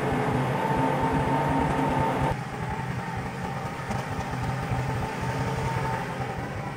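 Kubota compact tractor's diesel engine running steadily as it drives, a low hum. About two seconds in the sound drops and becomes more distant.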